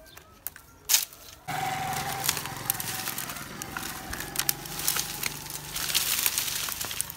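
Dry firewood twigs and branches crackling and clicking as they are handled, with one sharp snap about a second in. About a second and a half in, a steady background noise with a low hum starts abruptly.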